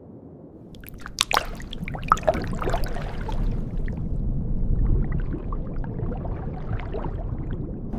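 Sea water sloshing and splashing over a low rumble, with a cluster of sharp splashes and drips between about one and three seconds in.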